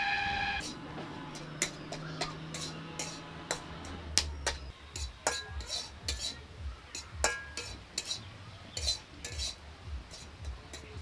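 Metal spatula scraping and knocking against a metal kadai as a thick ground chana dal filling is stirred and cooked, in irregular sharp scrapes and clicks about once or twice a second.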